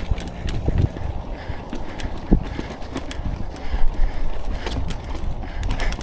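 Mountain bike riding over a rocky trail: frequent irregular clicks and knocks as the bike rattles over rock, over a steady low rumble.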